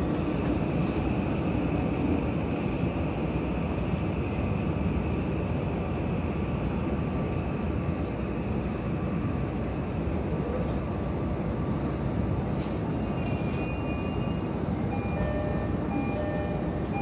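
Subway train running at speed: a steady rumble of wheels on rail, with a faint high whine that fades after the first few seconds and some faint steady tones near the end.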